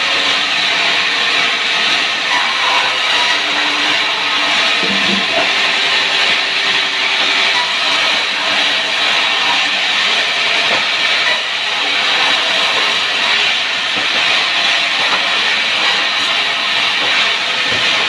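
Power wood saw running steadily through wood, a continuous loud hissing whine with no pauses.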